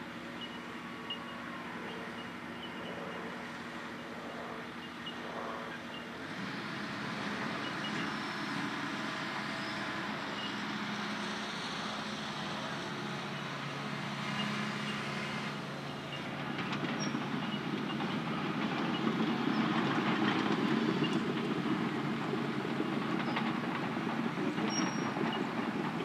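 Tracked hydraulic excavator's diesel engine running steadily, then revving up as it lifts its arm and travels off on its crawler tracks, a rolling, clanking rumble that grows louder about six seconds in and again past the middle.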